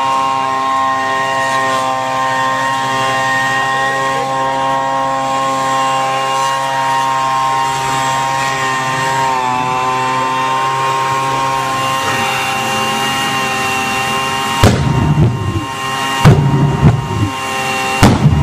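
Electric leaf blower whining steadily as it forces air into a homemade jet bicycle's engine to start it. About 15 seconds in, the jet begins to fire with loud, irregular pops and bangs as it catches.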